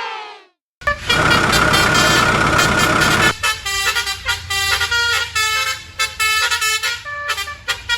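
Cartoon heavy-vehicle sound effects: a falling tone fades out at the start, then about a second in a loud engine-and-horn blast, followed by a run of short tooting horn notes over a low engine rumble.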